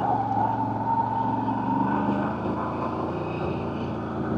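CFMoto CForce 1000 Overland ATV's V-twin engine running steadily while riding, with a thin whine near the start that fades after about two seconds.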